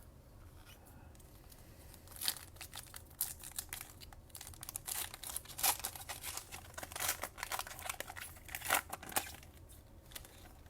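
A plastic trading-card pack wrapper being torn open and crinkled, in a long run of sharp crackles that starts about two seconds in and dies away near the end.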